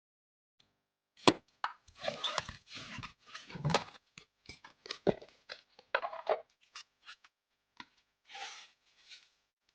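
Hands handling PC hardware: an irregular run of sharp clicks and taps mixed with short rustling sounds.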